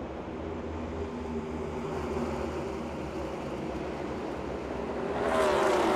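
NASCAR Cup Series stock cars' V8 engines running at racing speed in a steady drone. About five seconds in the sound grows louder, its pitch falling.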